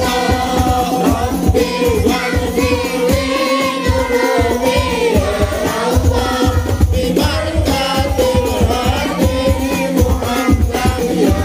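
A congregation singing devotional praise to the Prophet (shalawat) together during the standing mahallul qiyam, over a steady beat of hand drums with a jingling rattle.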